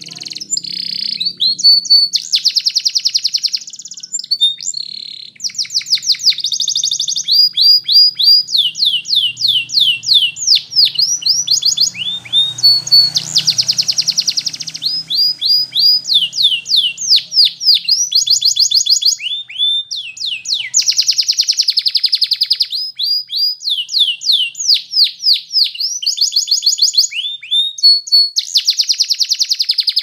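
A caged domestic canary singing a long, continuous song of fast trills and rolling runs of quick down-slurred notes, high-pitched, with only brief breaks between phrases.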